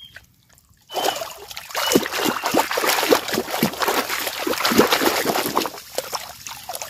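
Shallow water splashing and streaming as a large basket is swept through a ditch and lifted, with water pouring and trickling out through the basket. It starts suddenly about a second in and eases near the end.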